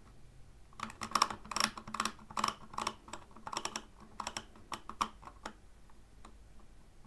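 Vintage DYMO-style hand-held embossing label maker being used to type: the plastic letter wheel clicks through its detents as it is turned from letter to letter, and the handle is squeezed to emboss characters on the tape. Many short irregular clicks, some in quick runs, fading out about two-thirds of the way through.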